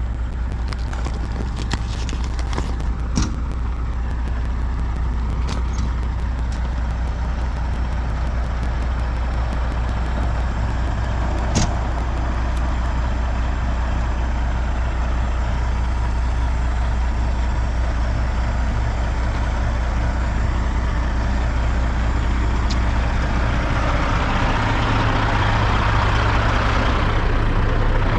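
Truck engine running steadily under road noise while driving. Near the end the engine note moves up and the noise grows louder.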